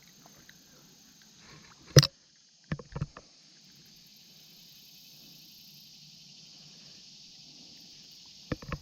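Water splashing and sloshing as legs wade through a creek, with a sharp splash about two seconds in, a few smaller ones just after, and more near the end, over a steady high insect chorus.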